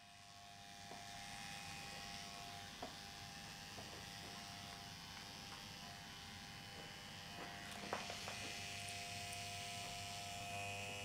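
Electric hair clipper running with a steady buzz, with a few small clicks about three seconds in and again near eight seconds.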